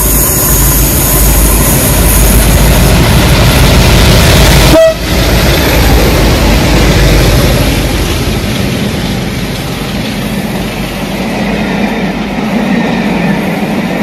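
Class 33 diesel locomotives, a double-header hauling a train, running past loudly and steadily, with a brief sudden dip about five seconds in.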